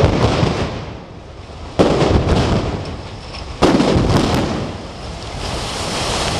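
Explosive demolition of concrete tower blocks, taken down one after another. There are three sharp blasts: one at the very start, one a little under two seconds in, and one a little over three and a half seconds in. Each trails off into a fading rumble as a tower comes down.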